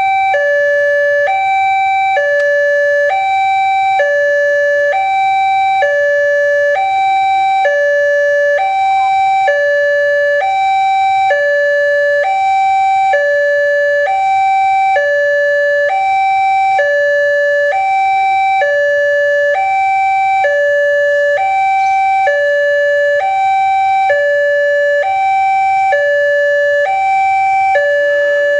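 Railway level-crossing warning siren sounding a steady two-tone hi-lo alarm, switching between a higher and a lower tone about twice a second, the signal that a train is approaching.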